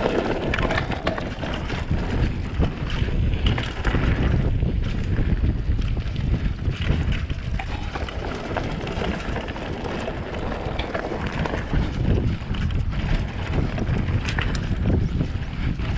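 Mountain bike riding fast down a gravel forest trail: wind buffeting the microphone over the rumble of knobbly tyres on gravel, with frequent short rattles and knocks from the bike over rough ground.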